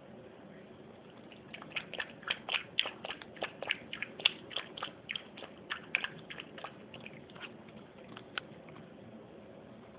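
A puppy's mouth working at a bowl: quick, regular clicking, about four a second, starting about a second and a half in and stopping about eight and a half seconds in.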